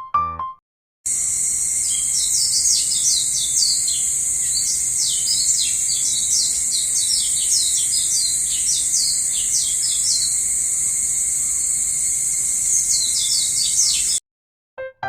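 Birds chirping, many quick calls sweeping down in pitch, over a steady high-pitched insect drone. The ambience starts about a second in and cuts off abruptly a second before the end.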